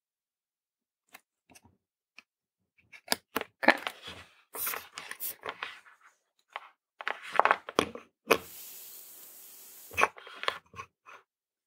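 Scattered clicks and irregular rustling of small parts and paper packaging being handled, busiest in the middle, followed by a steady hiss for about two seconds and a sharp click near the end.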